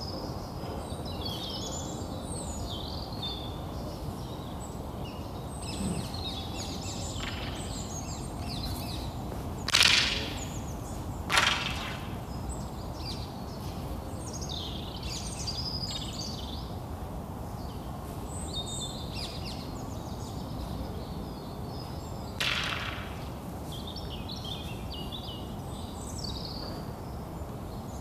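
A wooden staff swung hard through the air, three sharp swishes: about ten seconds in, again a moment later, and once more past twenty seconds. Small birds chirp throughout over a steady low outdoor rumble.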